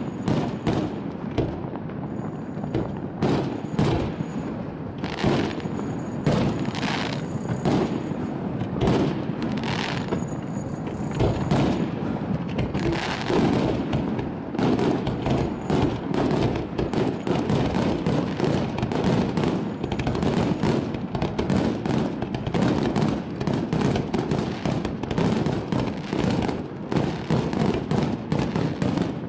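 Aerial firework shells bursting in a rapid, continuous run of bangs, coming thicker and faster from about halfway through as the display's closing barrage.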